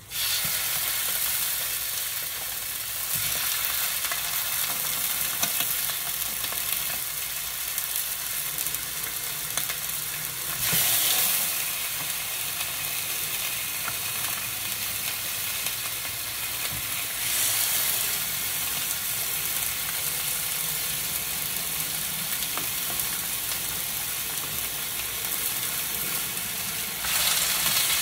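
Chicken pieces frying in hot oil in a pan: a steady sizzle that starts abruptly as the chicken goes in, swelling louder a few times as the pan is stirred or more pieces are added.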